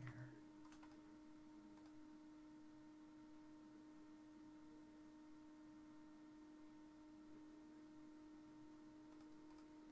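Near silence: room tone with a steady faint hum, and a faint click about a second in.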